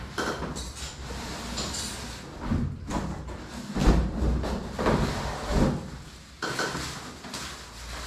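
Cardboard fan box being unpacked by hand: cardboard flaps and inserts scraping and rubbing, with packaging rustling and a few dull knocks, the loudest about four seconds in.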